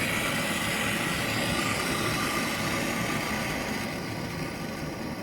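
Gas brazing torch burning with a steady hiss, easing slightly about four seconds in.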